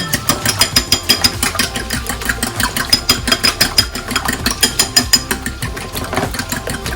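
Eggs being beaten by hand in a bowl: quick, regular clicks of the utensil striking the bowl, about five or six a second, with a light ring.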